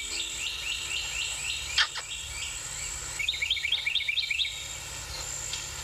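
A small bird chirping in fast runs of short, repeated notes, about four or five a second, pausing briefly in the middle, over a steady high-pitched whine. A single sharp click about two seconds in.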